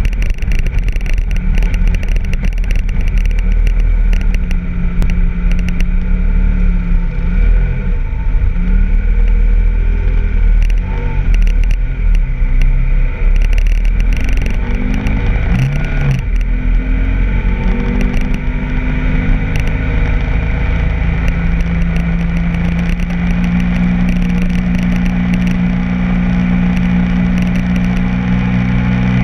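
BMW F800GS parallel-twin engine running as the bike rides along a dirt road. Wind rumbles on the bike-mounted microphone, and there is some clattering over the rough surface. The engine pitch rises and falls through the first half, then holds steady after the middle.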